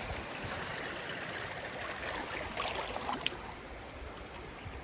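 Shallow water washing gently over gravel and shell at the shoreline, a steady wash, with a short click a little after three seconds in.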